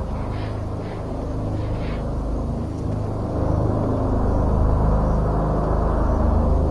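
A deep, steady rumbling drone of the kind passed around as mysterious sounds coming from the sky. A few faint short higher sounds come in during the first two seconds.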